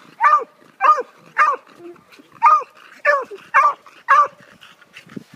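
Beagle barking repeatedly, about seven loud barks roughly half a second apart, with a short break near the middle. The barking stops a little after four seconds in.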